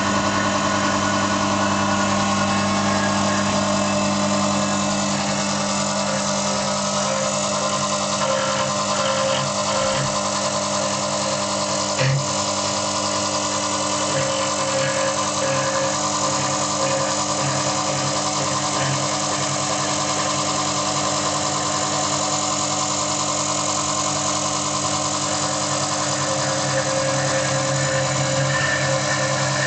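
Adept CIM Centre CNC milling machine running steadily as its spindle-driven cutter carves a 3D relief into a block of hardwood. A steady mechanical hum with several held tones, and a single short knock about twelve seconds in.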